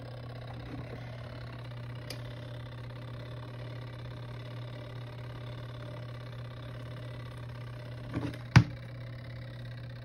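Intexca mini portable washing machine's motor running steadily during the wash cycle, a low even hum as it agitates a soapy load. A single sharp plastic knock comes near the end as the washer's lid is shut.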